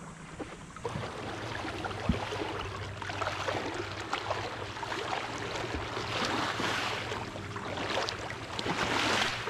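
Water sloshing and splashing around a kayak hull as the kayak moves through shallow lake water, swelling louder a couple of times near the end.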